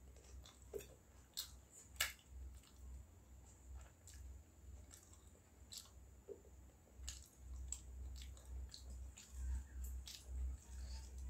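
Close-up eating sounds: chewing with many short, sharp, crisp clicks and crunches. Near the end comes wet squishing as fingers work through water-soaked rice in a steel bowl.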